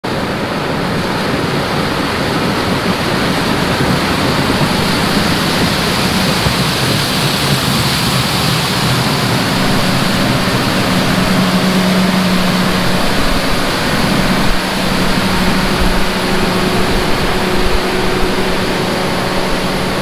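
John Deere 7750 self-propelled forage harvester chopping ear corn: a steady, dense rushing noise from the machine at work, with a steady low engine hum underneath.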